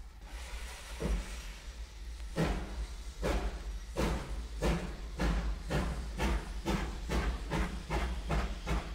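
Steam locomotive pulling away, from a sound-effects track on a stereo test LP. Its exhaust chuffs start widely spaced and come faster and faster, to about three a second, over a steady hiss.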